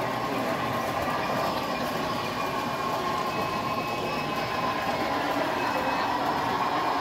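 Model steam locomotive and its passenger cars running along the layout track: a steady train running sound that grows a little louder near the end as the train comes closer.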